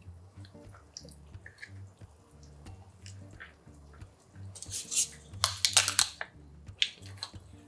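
A metal spoon scraping and clicking against a small plastic cup as salted seafood (jeotgal) is scooped out, with soft wet plops as it drops into a ceramic dish. The sharpest clicks come in a cluster about four and a half to six seconds in.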